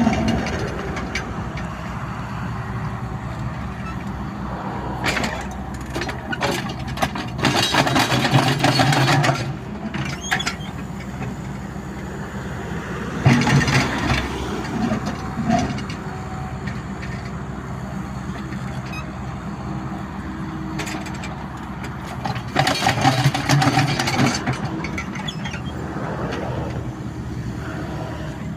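A heavy engine running steadily, growing louder and rougher for a few seconds three times, around a quarter of the way in, near the middle and toward the end.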